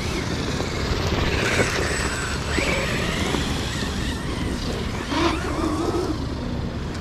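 Electric motor and drivetrain of an RC monster truck whining as it runs on sand, the pitch rising and falling as the throttle is worked, twice in quick swells, over a steady rumble of wind on the microphone.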